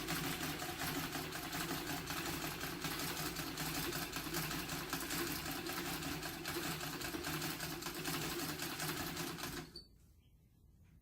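Old Singer treadle sewing machine running steadily after oiling, its mechanism clattering rapidly, with a little squeak that should work its way out as the oil runs through. It stops abruptly near the end.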